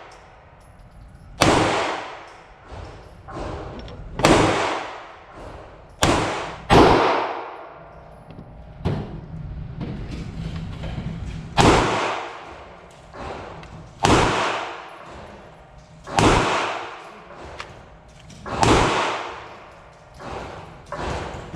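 Slow, unhurried 9mm pistol fire, about a dozen shots a second or two apart. Each shot is followed by a long echo.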